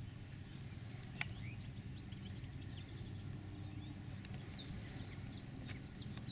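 Small songbirds chirping, with quick high chirps in rapid runs that start a little past halfway, over a quiet steady outdoor background.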